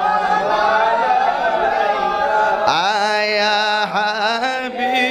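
A man singing a Bengali naat, a devotional song praising the Prophet Muhammad, in long drawn-out melismatic notes. Nearly three seconds in, the voice slides up into a strong held note.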